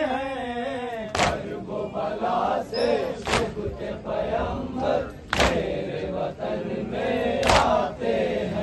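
Crowd of Muharram mourners chanting a noha together, cut by a loud sharp collective strike about every two seconds, four in all.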